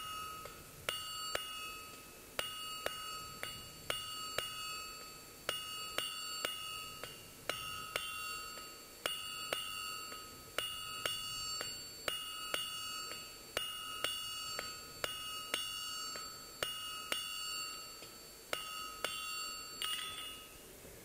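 Hand hammer striking a hot mild steel bar on an anvil, drawing a square point: steady blows in small groups, roughly two a second, each leaving the anvil ringing. The blows stop near the end.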